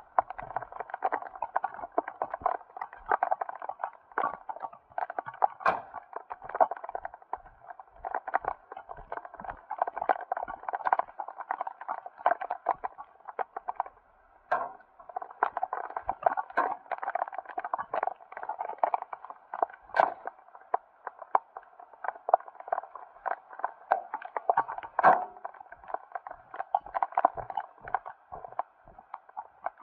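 Rain pattering on a truck cab: dense, irregular ticks of raindrops, with a few louder drops standing out.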